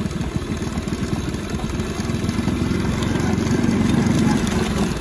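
Motorcycle engine running steadily at low speed, picking up slightly about three and a half seconds in.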